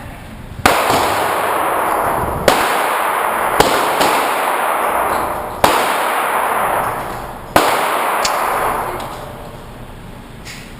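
Five pistol shots fired at uneven intervals, one to two seconds apart, each followed by a long echoing decay.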